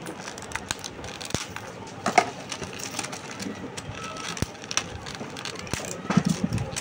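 Crinkling plastic wrap and scattered light clicks and taps as hands handle a cellophane-wrapped tray of rubber type letters.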